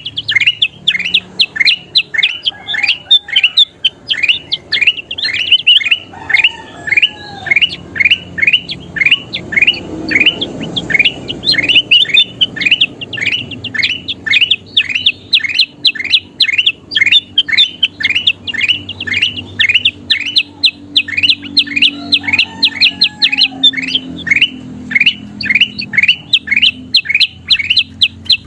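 A kutilang emas bulbul calling continuously in full, in-form (gacor) voice: a fast, even string of short, sharply falling notes, about three a second.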